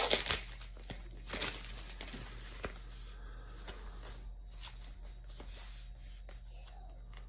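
Packaging being handled while a camera box is opened: crinkling and tearing at the start and again about a second and a half in, then scattered light clicks and taps.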